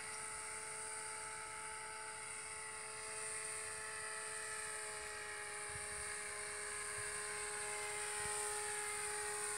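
The small motor and propeller of a radio-controlled model paraglider in flight, a steady buzzing whine.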